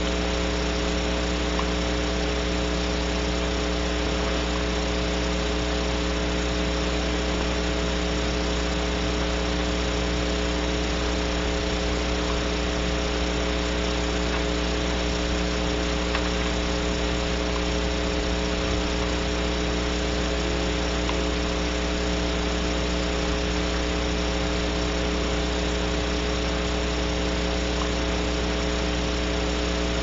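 Steady electrical hum with a constant hiss on the nest-box camera's audio feed.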